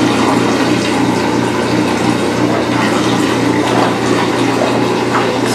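Shower drain bubbling and churning as water from a draining washing machine backs up into it, over a steady low hum. The backing-up is a plumbing fault the owners can't explain.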